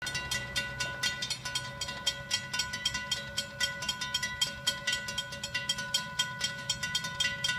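Railroad crossing warning bell ringing rapidly and evenly, about five strikes a second, as the crossing gates come down to warn of an approaching train.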